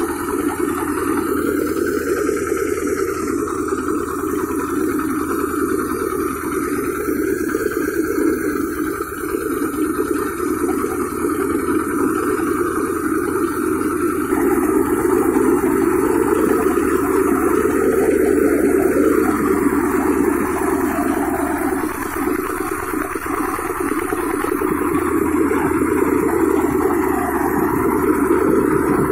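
Small grain thresher running steadily, driven by a Kirloskar diesel engine, as bundles of harvested stalks are fed into its drum.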